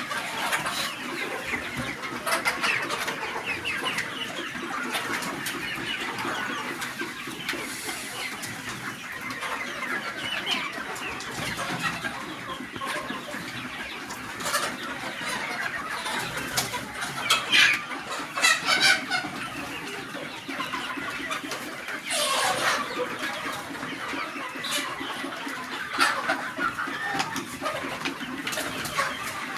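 A flock of desi chickens clucking continuously, many birds calling over one another. A few louder calls stand out in the second half.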